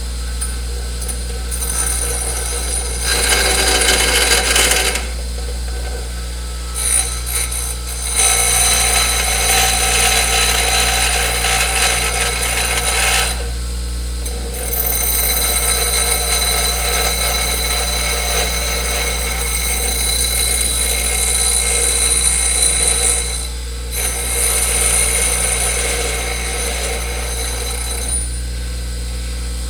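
Grinding wheel spinning with a steady motor hum, while something is pressed against it in several long passes. Each pass brings a loud, hissing grind lasting a few seconds, with short breaks where only the hum is left.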